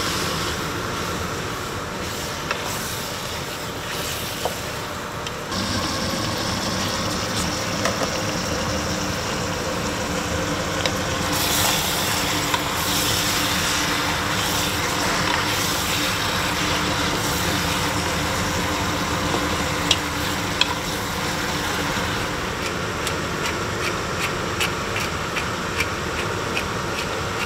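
Pork cubes sizzling in a pot as they are stirred, over a steady background hum. The sound changes abruptly about five seconds in, and a run of light clicks comes near the end.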